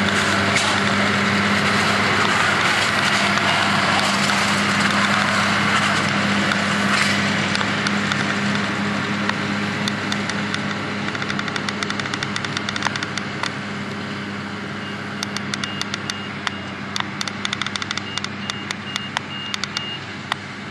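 Diesel engine of harvest machinery running steadily at working load, loud at first and then easing off. Near the end, sharp clicks and a run of short high-pitched beeps sound over it.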